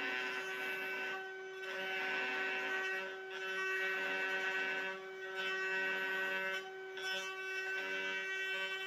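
Router running at a steady high pitch while a round-over bit cuts the edges of pine 2x4 legs. The cutting comes in a string of passes, each a second or two long, with short breaks between them.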